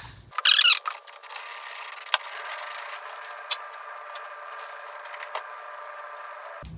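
A ratchet wrench turning, a continuous rasping clicking as a 10 mm bolt holding the steering-wheel airbag is backed out.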